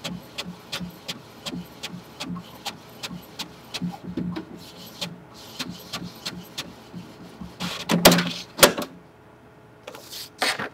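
Inkjet printer printing a colour page: the print-head carriage moving back and forth with about three clicks a second over a low motor hum, with two louder mechanical bursts near the end as the paper feeds out.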